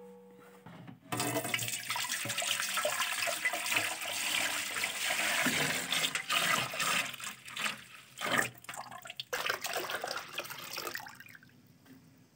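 Milk poured in a steady stream into a metal pot, splashing and frothing. The pour starts about a second in, wavers briefly past the middle, and tails off shortly before the end.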